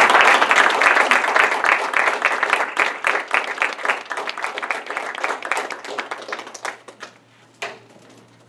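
Congregation applauding after a song, strong at first and thinning out over about seven seconds. A single knock comes near the end.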